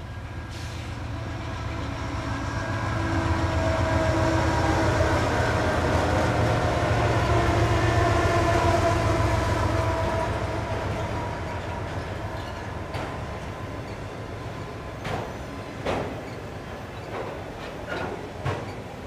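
CSX diesel freight locomotives passing close, their engine drone swelling to a peak several seconds in and then fading, followed by autorack freight cars rolling by with sharp clacks of wheels over rail joints near the end.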